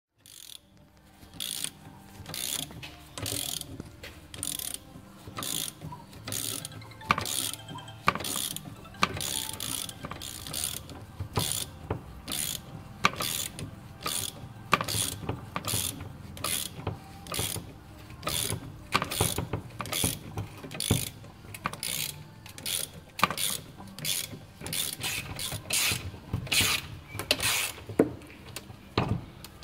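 Hand ratchet wrench clicking in steady back-and-forth strokes, about two a second, as it turns the threaded rod of a bush puller to draw a BMW E46 front subframe bush out of the subframe.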